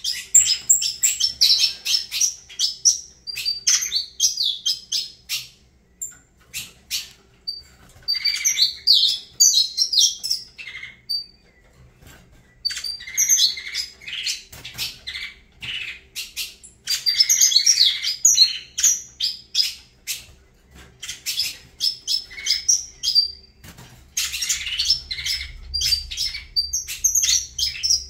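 Saffron finch (canário-da-terra) singing: bouts of rapid, high chirping phrases a few seconds long, separated by short pauses.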